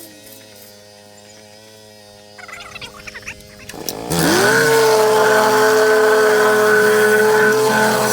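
A few irregular clattering knocks, then a whacker plate's (plate compactor's) small petrol engine starts about four seconds in. Its pitch rises quickly and it settles into a loud, steady run.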